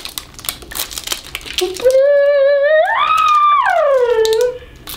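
Crinkly wrapper crackling as a layer is peeled off a toy capsule ball. About two seconds in, someone hums a single note that holds, rises, holds again and glides back down over about three seconds.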